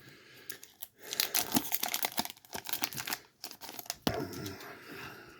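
A foil Pokémon booster pack wrapper crinkling and tearing open, with a rapid run of sharp crackles between about one and three seconds in and softer rustling after.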